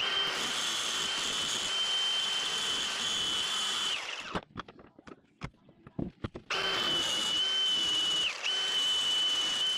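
Electric grinder grinding notches into a car's steering rack with a steady high whine for about four seconds. It stops for a couple of seconds, with a few clicks and knocks, then grinds again, its pitch dipping briefly once.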